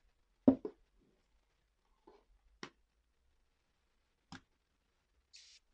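A knock about half a second in, then a couple of sharp clicks from handling, and near the end a short hiss of KOBY disinfecting foam spraying from its aerosol can onto a motorcycle helmet.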